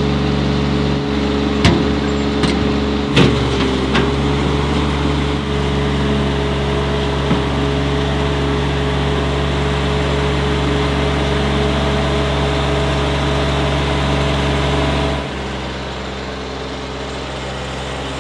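Tractor engine running steadily, with a few sharp clanks and knocks in the first four seconds. About fifteen seconds in it drops to a lower, quieter running note.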